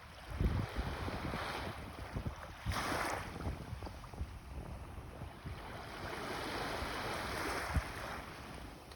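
Sea surf on a beach: waves breaking and washing in, with one sharper crash about three seconds in and a longer swelling wash in the second half. Wind buffets the microphone with low thumps.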